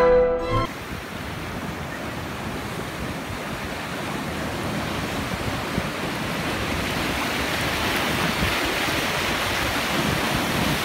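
Ocean waves breaking against rocks: a steady rush of surf that grows louder toward the end.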